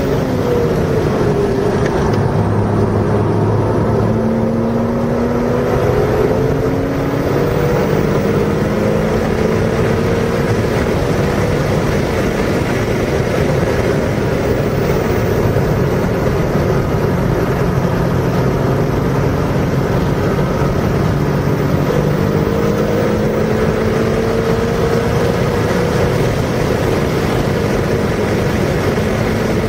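A car's engine under hard driving, its pitch climbing slowly and dropping back several times as it goes through the gears, over a loud steady rush of wind and road noise.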